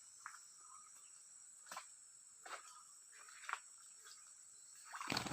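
Steady high-pitched drone of crickets or cicadas, with four short bird chirps spread out about a second apart. A loud burst of noise begins near the end.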